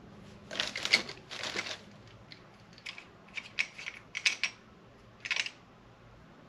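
Camera tripod head being handled and adjusted, making two short rasping scrapes about half a second in, then a string of sharp clicks and brief scrapes.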